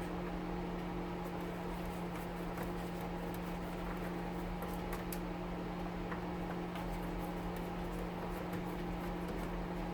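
Steady hum of a kitchen stove's fan running, with faint light clicks scattered through it from a screwdriver working loose the Phillips screws that hold an oven's fan motor.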